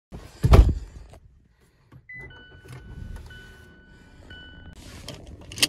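Inside a car cabin: a car door shuts with a loud thump about half a second in. About two seconds in there is a short beep, and a low engine rumble starts and keeps running. A steady two-pitch electronic warning tone sounds for a couple of seconds, with short breaks, and there is a sharp click near the end.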